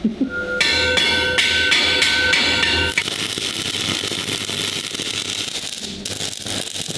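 A hammer raps the metal irrigation pipe about three times a second, and the pipe rings after each blow. About three seconds in, the ringing stops abruptly and an arc (stick) welder crackles steadily as a bead of weld is run around the pipe's base to seal it.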